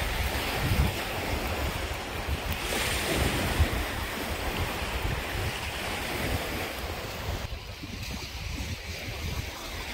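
Waves breaking and washing along a sandy shore, mixed with gusty wind rumbling on the microphone. The rushing hiss thins somewhat near the end.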